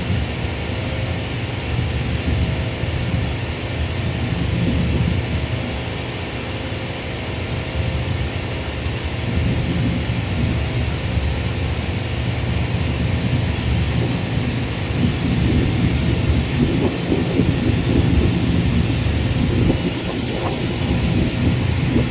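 Distant twin-engine jet airliner's engines rumbling as it rolls along the runway: a continuous low rumble that grows rougher and a little louder over the second half.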